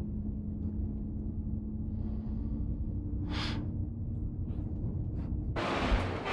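Steady low hum of a moving coach's engine and road noise heard inside the cabin, with one short soft whoosh about three and a half seconds in. Near the end it cuts abruptly to louder, hissing street traffic noise.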